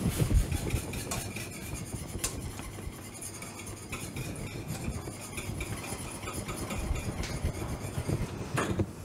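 A wire whisk stirring thickening cornmeal polenta in a stainless steel saucepan, clicking and scraping against the metal pan many times, over a steady hiss.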